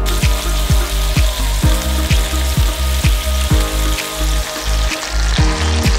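Beef burger patties sizzling in butter in a frying pan, with the hiss ending near the end. Background music with a steady beat plays throughout.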